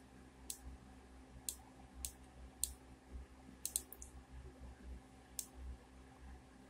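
Computer mouse clicking: about eight faint, sharp clicks scattered through, a couple in quick pairs, over a low steady hum.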